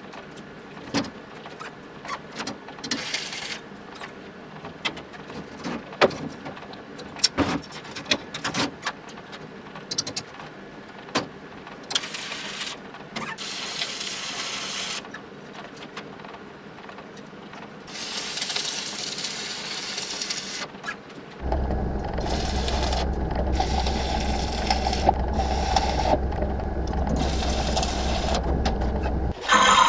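Steel bars being handled and clamped, with scattered clicks and taps, then electric arc welding: short stretches of crackling sizzle, and in the last third a longer, louder stretch of welding over a steady low hum.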